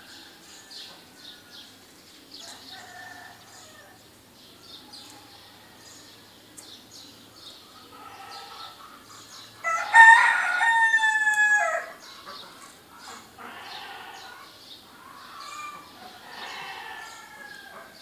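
A rooster crows once, loud and clear, about ten seconds in: a two-second call that drops in pitch at the end. Fainter calls from other fowl come and go around it, and small birds chirp throughout.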